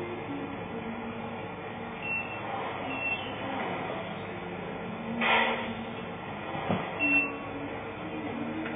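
Tamiya 1/14 scale RC tractor truck's sound unit playing a steady diesel engine running note, with a short hiss about five seconds in.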